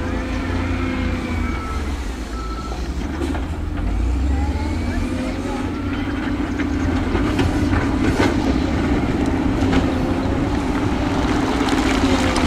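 Heavy earthmoving machinery running: a steady low diesel engine rumble, with thinner whining tones that rise and fall in pitch.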